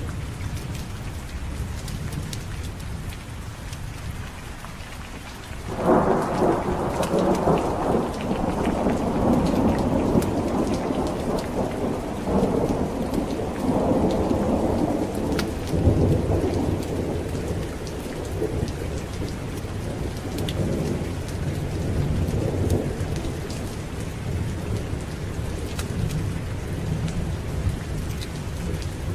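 Steady heavy rain with a low rumble. About six seconds in, a loud thunderclap breaks and rolls on, slowly dying away over the following fifteen seconds or so.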